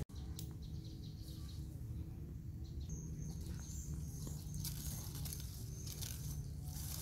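Faint outdoor ambience: a steady low rumble with a few short, thin, high-pitched bird chirps from about three to six seconds in.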